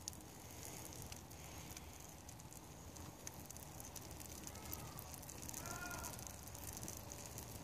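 Faint crackling and sizzling of a fire burning in a metal barrel fire pit, with scattered small pops, as a skateboard deck burns at its rim.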